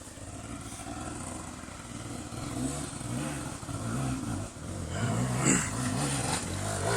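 Enduro motorcycle engine revving up and down in short blips as the rider works through a technical trail section, getting louder toward the end.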